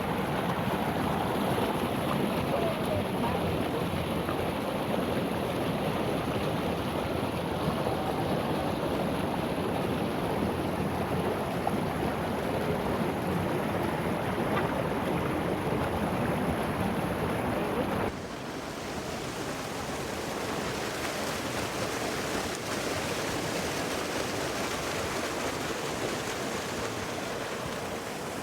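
Steady rushing water of a waterfall and creek. About two-thirds of the way through it cuts suddenly to a quieter, thinner, hissier rush.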